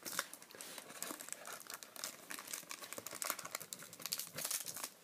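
Baseball card pack wrapper crinkling and tearing in irregular crackles as fingers pick and pull at it, working a wrapper that won't rip open cleanly.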